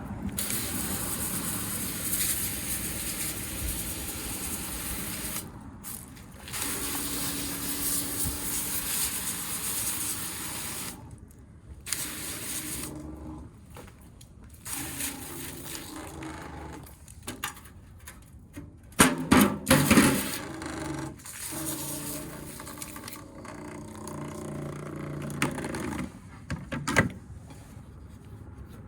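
Coil cleaner spraying from a powered sprayer wand onto a dirty blower wheel: a hissing spray that stops and starts several times. A burst of loud clattering comes about two-thirds of the way through.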